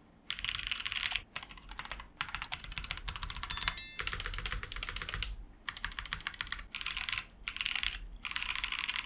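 Typing on a Fantech Maxfit70 mechanical keyboard: quick runs of key clacks in bursts of about a second, broken by short pauses.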